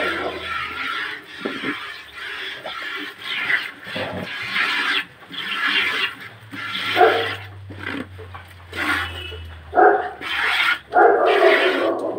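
Milk squirting from a cow's teats into a plastic bucket as she is milked by hand, with repeated loud animal calls over it. A low steady hum sits underneath.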